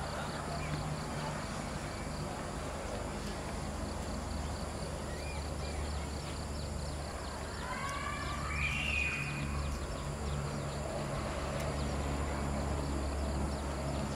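Outdoor ambience: a steady low hum and faint regular ticking, with a short high call that rises and falls in pitch about eight seconds in.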